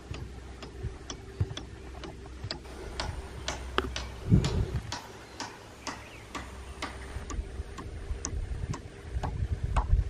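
A series of short, sharp ticks at an irregular pace, about two to three a second, over a low rumble, with one heavier dull bump about four seconds in.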